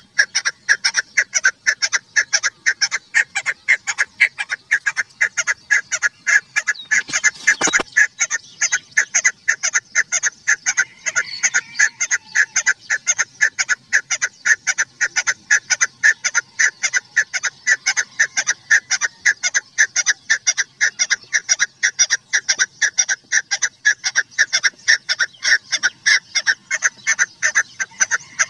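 Female chukar partridge (chakor) calling: a long, unbroken run of short, rapid clucking notes, several a second. A brief rustle comes about seven seconds in.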